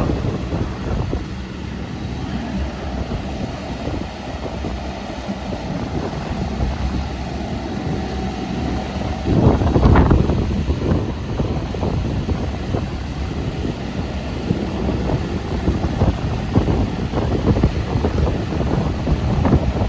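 The diesel engine of a JCB 16C-1 mini excavator running steadily, with wind buffeting the microphone. There is a louder surge about halfway through.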